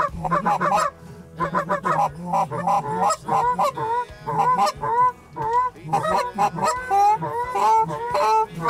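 Canada geese honking, many calls overlapping and repeating in quick succession, as a flock circles in to land.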